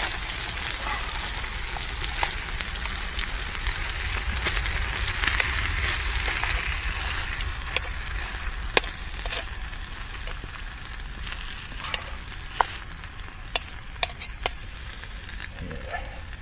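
Chicken pieces frying in a pan over a small gel-fuelled camping stove: a steady sizzle, heaviest in the first half, with scattered sharp pops of spitting fat, several louder ones in the second half.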